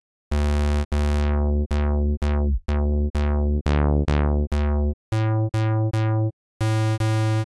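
Sawtooth synthesizer notes played on a keyboard through the Phalanx sampler, about a dozen in a row. Each note starts bright and quickly closes down: a snapping low-pass filter envelope sweep. The last few notes are lower, and the final one stays bright and is held without the sweep.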